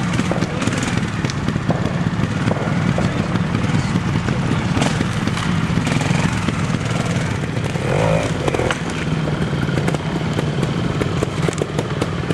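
Trials motorcycle engine running steadily at low revs, with scattered sharp knocks and clatter as the bike is ridden over logs and rocks.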